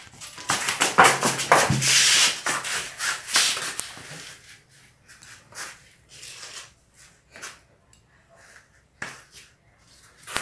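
Irregular rubbing and scraping noises, a quick run of strokes loudest in the first few seconds, then fewer and fainter ones.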